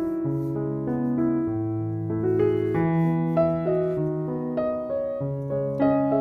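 Background piano music: a slow melody with new notes about every half-second to second over low held bass notes.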